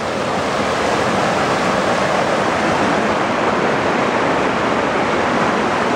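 Creek rapids roaring: white water rushing and cascading over rock ledges, a loud, steady, unbroken rush.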